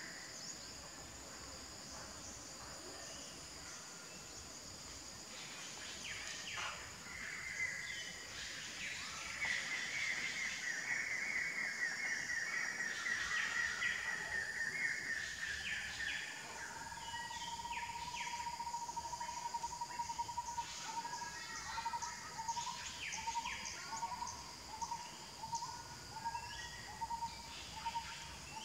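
Outdoor tree-canopy ambience: a steady high insect drone throughout, with birds calling over it. A wavering call runs from about 8 to 16 seconds in, then a pulsing call repeats until the end.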